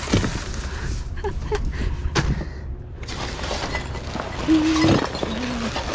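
Plastic bags crinkling and rustling, and cardboard boxes shifting and knocking, as gloved hands dig through bagged goods in a dumpster, with many sharp little clicks and clatters.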